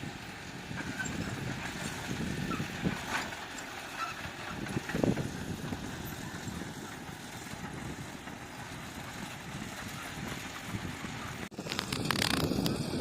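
Heavy earthmoving machinery running steadily, with a few low knocks. It breaks off abruptly about eleven and a half seconds in and comes back louder.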